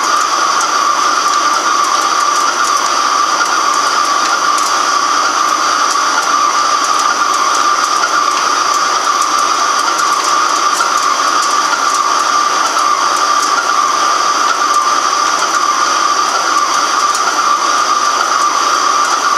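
Microcut BNC-6500 heavy-duty flat-bed lathe taking a continuous cut on a large metal workpiece: a loud, steady machining noise with a constant mid-pitched tone running through it.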